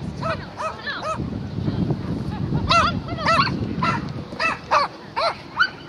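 Small dog barking excitedly, a dozen or more short high yaps coming in quick runs, loudest a little before the middle.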